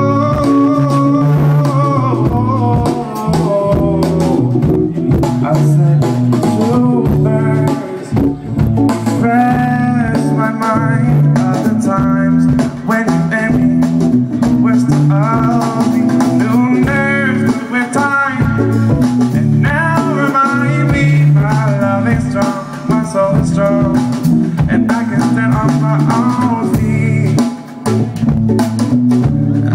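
Live rock band playing: a male singer's voice over electric guitar, bass guitar and drum kit.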